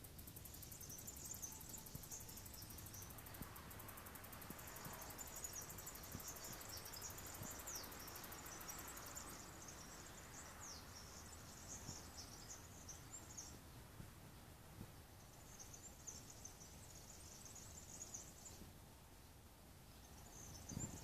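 Faint high chirring of field insects, coming in stretches of several seconds with short pauses between, over a low steady background rumble.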